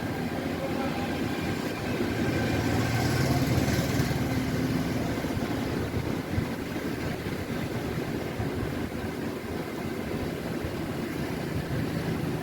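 A steady engine-like hum in the background. It swells a couple of seconds in and eases off again after about five seconds.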